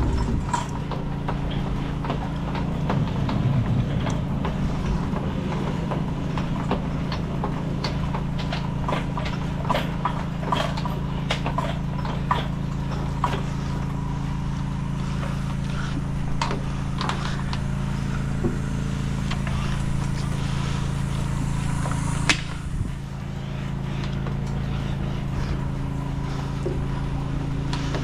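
A motor running steadily, with scattered clicks and knocks over it. There is one sharp knock about two-thirds of the way through, after which the running dips briefly.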